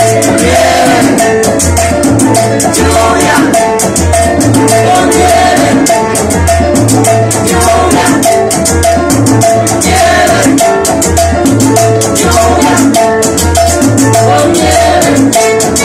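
Charanga band playing salsa live: women singing over flute, violin, congas and a bass line that repeats in a steady pattern, with constant percussion strokes.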